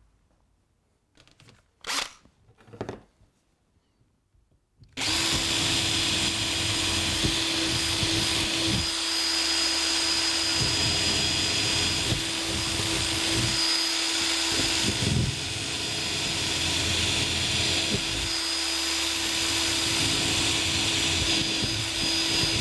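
A cordless drill starts about five seconds in and runs steadily, boring cable holes down through the cork-covered baseboard. It stops abruptly at the end. A few light clicks come before it starts.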